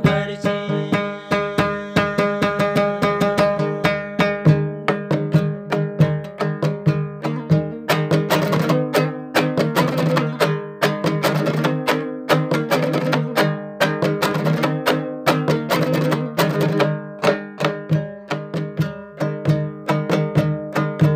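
Dambura, the Hazara long-necked two-string lute, strummed fast and rhythmically in an instrumental passage of a Hazaragi folk tune, with a steady low note sounding beneath the strokes.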